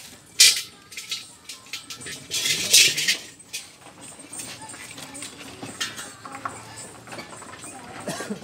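Metal clicks and scrapes of an Allen key working the drain plug on a Mahindra Scorpio's rear differential: one sharp click about half a second in, a scraping rasp around two to three seconds in, then smaller irregular clicks and scratches.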